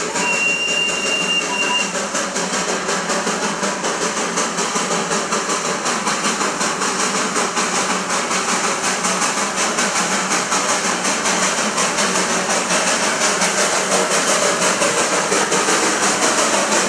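Darjeeling Himalayan Railway B-class narrow-gauge steam locomotive working hard as it approaches: rapid, even exhaust beats over a steady hiss of steam. A short high-pitched tone sounds near the start.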